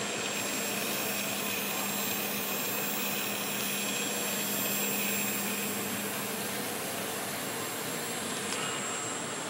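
Small 2200KV brushless RC motor spinning a 5x3 propeller as a personal fan, running at a steady speed: an even rush of blown air with a faint steady whir.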